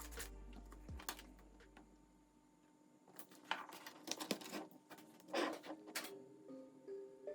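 Faint, irregular light clicks and taps, a dozen or so, of small hard parts being handled during tablet repair work. A music bed fades out over the first couple of seconds, and soft mallet-like music notes come in near the end.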